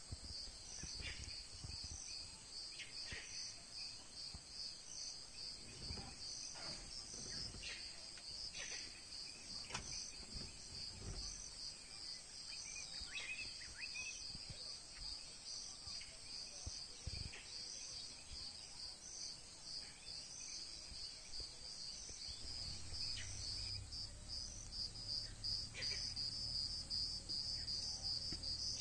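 Steady high-pitched insect chorus, a continuous whine with a quick pulsing chirp over it. A low hum joins about three-quarters of the way through.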